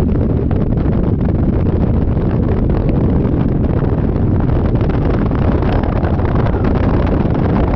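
Wind buffeting the microphone on a moving Yamaha Majesty 400 scooter: a loud, steady low rumble that does not let up.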